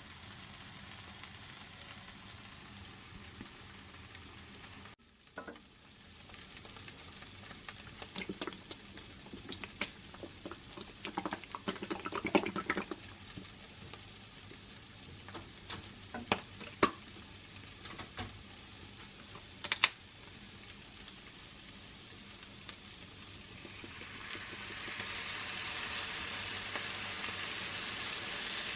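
A pan of mushroom sauce sizzling on the stove, with a run of sharp clinks and scrapes from a utensil stirring it in the middle. The sizzle drops out briefly about five seconds in and grows louder near the end.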